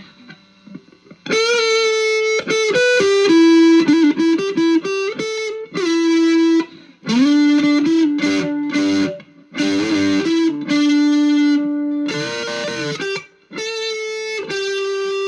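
Electric guitar played through a JHS Ross Distortion pedal with the distortion turned all the way up: sustained, distorted single-note lines with bends and vibrato, in phrases with short gaps.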